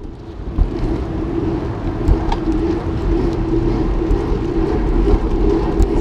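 Wind buffeting a handlebar-mounted camera and tyre rumble from a bicycle rolling along a concrete road, with a steady hum and a few light knocks.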